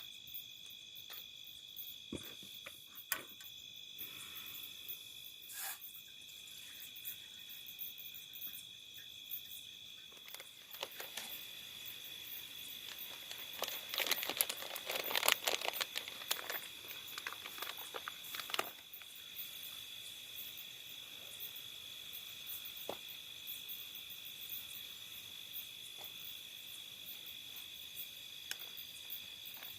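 Crickets chirring steadily in a high, continuous tone. Scattered light clicks, and a louder stretch of rustling and crinkling handling noise around the middle.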